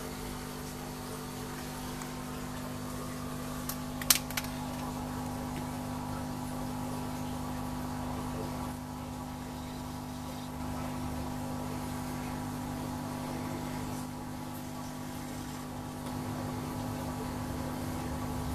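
Steady motor hum of aquarium equipment, with a few sharp clicks close together about four seconds in.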